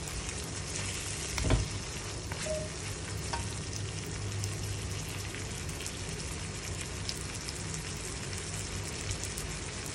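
Beef slices frying and sizzling in curry spice paste in a stainless-steel wok while a slotted metal spatula stirs them, the beef being fried until tender. One louder knock comes about a second and a half in.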